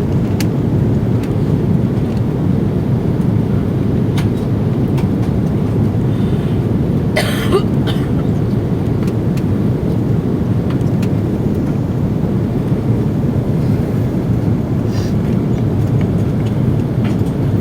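Steady low rumble of cabin noise inside an Airbus A330-300 airliner on final approach, from airflow and engines. About seven seconds in there is a short burst of noise.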